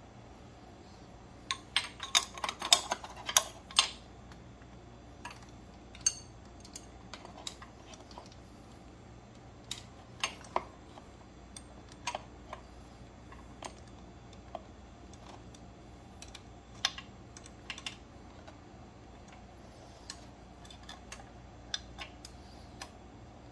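Scattered metallic clicks and taps of hand tools and parts handled while a motorcycle's shift linkage and footpeg bracket are refitted, with a quick run of clicks a couple of seconds in.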